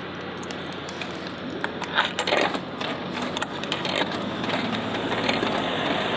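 Coins fed one at a time into a vending machine's coin slot, making a series of sharp clicks and clinks as they drop into the coin mechanism. Most of the clinks come in a quick run in the second and third seconds, with a few more later.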